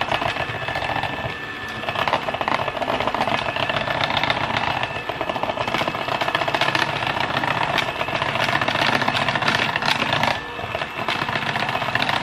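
Electric mixer running steadily in a bowl of muffin batter as flour is mixed in, with a whine and a rattly clatter, easing off briefly twice.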